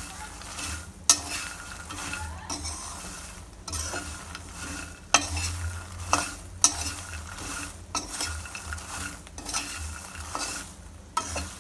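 Steel spatula stirring makhana (fox nuts) in a kadhai as they are roasted until crisp: scraping strokes over the pan with several sharp clinks of spatula on metal, and a sizzle under it.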